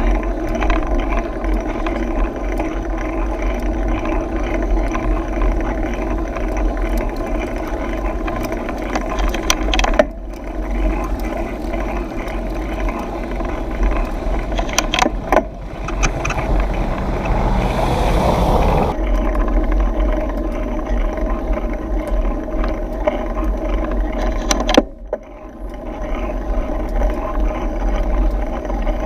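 Riding noise from a mountain bike rolling along a concrete road: a steady rumble and hum with scattered knocks and rattles from the bike over bumps, and a brief hiss about two-thirds of the way through.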